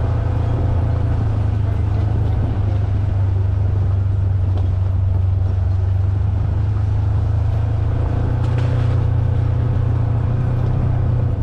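Engine of a 2022 Polaris General XP 4 side-by-side running steadily, an even low drone that holds without revving up or down.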